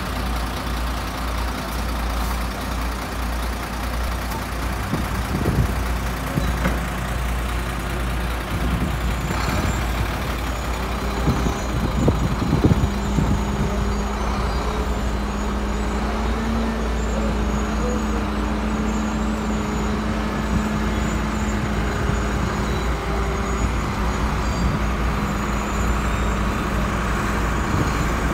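Heavy diesel vehicle engine running steadily, a continuous low rumble with a steady drone that settles in about a third of the way through, and a few brief knocks.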